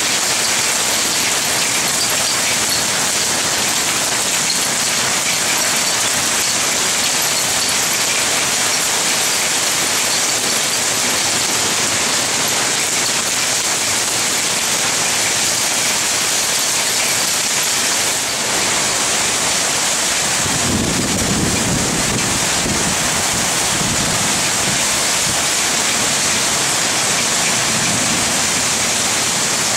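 Heavy rain pouring down in a violent storm, a dense steady hiss. About twenty seconds in, a deep low rumble joins it for several seconds.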